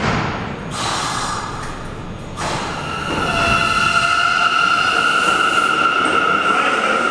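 Bombardier R179 subway train pulling out of an underground station. A brief rush of noise comes about a second in, then a steady high-pitched wheel squeal grows louder as the cars get moving.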